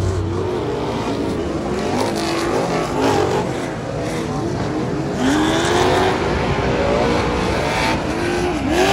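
Pro 2 short-course off-road race truck's V8 engine revving on a dirt track, its pitch rising and falling with the throttle through the corners, a little louder from about five seconds in.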